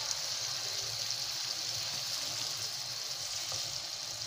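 Chicken, tomato and yogurt-masala gravy sizzling steadily in a frying pan as it is fried down (bhuna).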